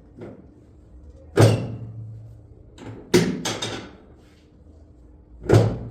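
Heavy thumps and knocks from a chiropractic back adjustment. There is one about a second and a half in, a quick run of three around three seconds in, and another near the end.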